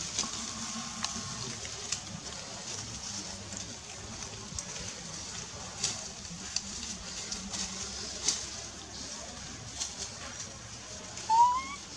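Quiet outdoor ambience: a faint steady low drone and a high hiss with a few soft ticks, and near the end one short rising call.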